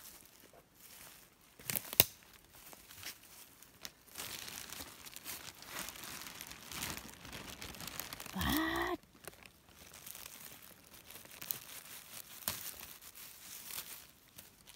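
Rustling and crinkling of dry leaf litter and twigs under feet and hands, with a sharp crack about two seconds in. Then a knife cutting and working a scaber-stalk bolete free at its base, with scattered crackles, and a brief rising vocal sound a little past the middle.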